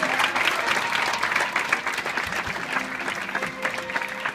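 Audience applauding, a dense patter of many hands clapping, easing slightly toward the end, with the band's held notes faintly underneath.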